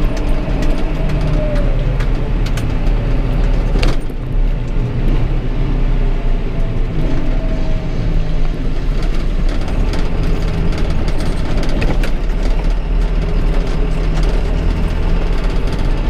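John Deere 6420 tractor's four-cylinder diesel engine running steadily, heard from inside the cab while it tows a silage trailer along the road. There is a brief dip in engine pitch about a second in and a single sharp knock about four seconds in.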